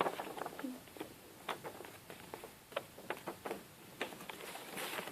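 A sheet of paper being handled and folded: irregular crinkles and soft taps, with a denser rustle near the end.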